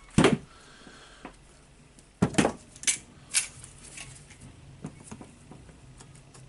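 Small metal parts of a rotary hammer drill clinking and knocking as they are handled on a workbench: a sharp knock just after the start, a quick run of four clinks from about two to three and a half seconds in, then a few lighter taps.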